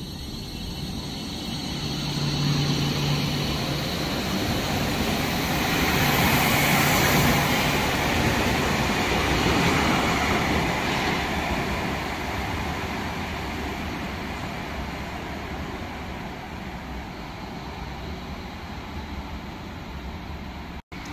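Light-rail tram passing along an underground station platform: a low motor hum and wheel-on-rail rumble that swell to a peak as it goes by, then slowly fade as it runs off into the tunnel.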